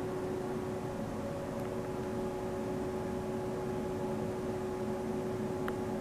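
Steady mechanical hum with a few held tones over a low rumble, and one faint tick near the end.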